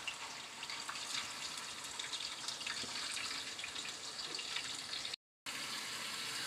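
Hot oil sizzling and crackling steadily around raw, thread-tied beef pasanday rolls as they are laid into it and begin to fry. The sound cuts out for a moment about five seconds in.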